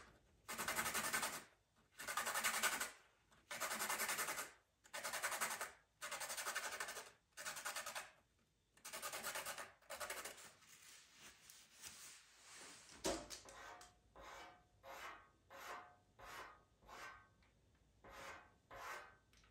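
White pastel pencil being sharpened: about nine long, even rasping strokes a second or so each over the first half, then a sharp tick and a run of shorter, lighter strokes.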